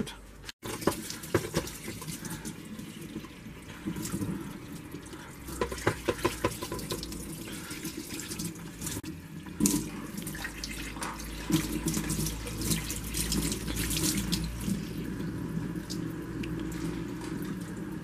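Kitchen tap running into a stainless-steel sink as a coffee machine's plastic brewing unit is rinsed under it, with scattered knocks and clicks from the unit being handled.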